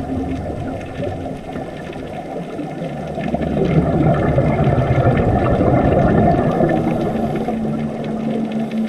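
Underwater noise: a dense low rushing sound with a steady low hum running under it, swelling in the middle.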